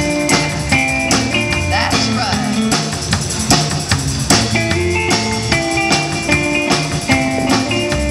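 Live rock band playing: electric and acoustic guitars over a drum kit, with a tambourine shaken and struck on the beat.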